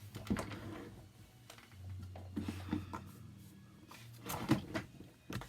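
Sheets of cardstock being sorted and handled on a craft table: scattered short rustles and light taps, a cluster of them near the end, over a faint low hum.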